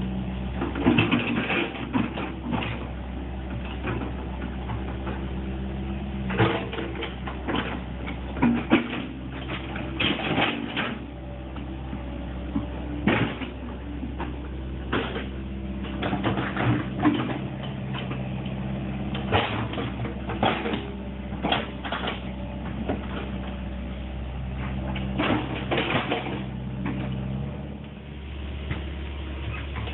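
Excavator running steadily while working, its engine note rising and easing, with frequent sharp clanks and knocks from the machine at work.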